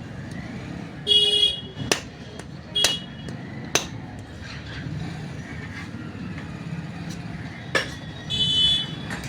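Two short vehicle horn honks, one about a second in and one near the end, over steady street noise, with several sharp metallic knocks and clicks of tools on metal in between.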